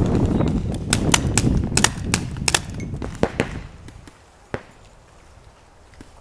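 Paintball markers firing: a rapid, irregular string of sharp pops over the first three seconds or so, then a single shot about four and a half seconds in.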